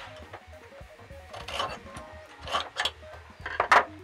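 A steel scriber scratching marking lines into aluminium angle: a few short scrapes, the loudest near the end.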